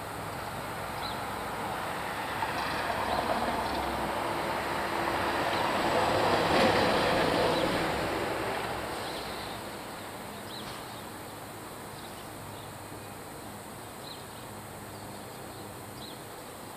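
Rumble of a passing vehicle, swelling to a peak about six to seven seconds in and then fading away, with a few faint, short, high chirps over it.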